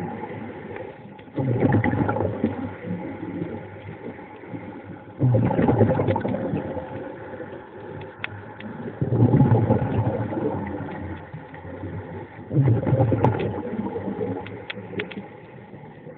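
Underwater rush of a diver's exhaled breath bubbles, four times at about four-second intervals, each starting suddenly and fading away.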